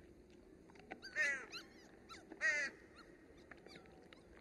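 Dogs giving two short, high-pitched cries about a second apart, over faint ambient outdoor sound.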